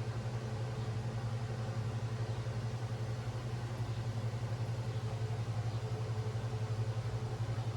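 Steady low machine hum with a fast, even flutter, unchanging throughout.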